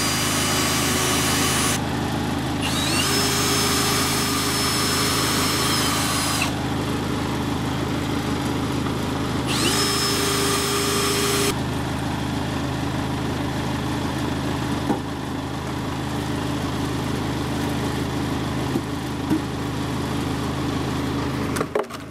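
Power drill backing screws out of wooden concrete form boards: three short runs, each spinning up in pitch, holding steady and stopping abruptly. A steady engine hum runs underneath.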